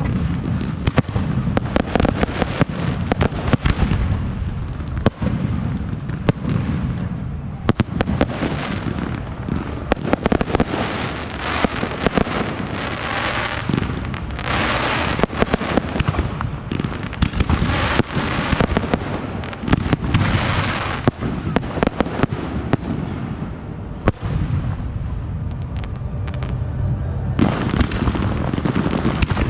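Fireworks and firecrackers going off in a dense, continuous crackle of rapid pops and bangs, thickest about halfway through and easing a little near the end.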